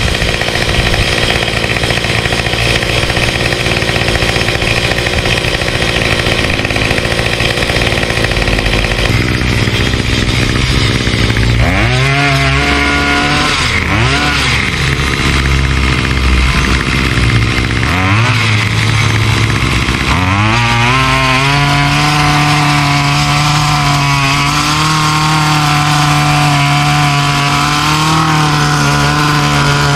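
Small gas-powered mini tiller (garden cultivator) engine running. In the middle its pitch sags and climbs back several times as the tines dig into the sod, then it settles into a steady, higher run with slight wavering.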